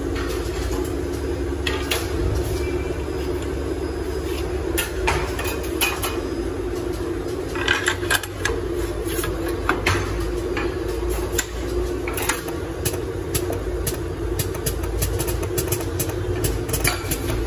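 18-nozzle PVC plastisol dispensing machine running: a steady mechanical hum with scattered clicks and taps from its moving parts.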